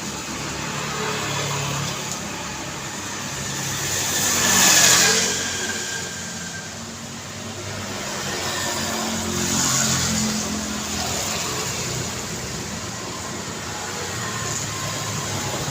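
Busy street traffic: a steady wash of engines and tyre noise, with one vehicle passing close and loud about five seconds in and another passing near the ten-second mark.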